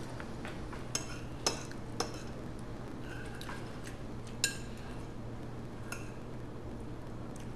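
Metal fork clinking and scraping on a ceramic plate as the last of the spaghetti and sauce is gathered up, with a handful of sharp, separate clinks, the loudest about one and a half seconds in and again near the middle.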